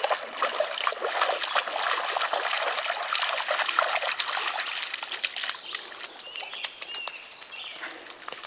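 Water splashing and trickling as a dog wades through a shallow river, busiest for the first five seconds and then quieter. A few short high bird chirps come near the end.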